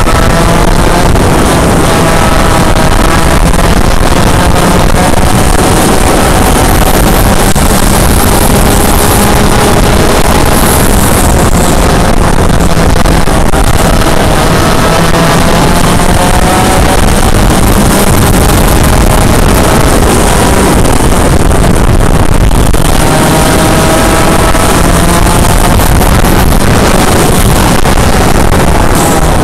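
Yamaha KT100 100cc two-stroke kart engine running flat out, loud, its pitch climbing along the straights and dropping back for the corners several times.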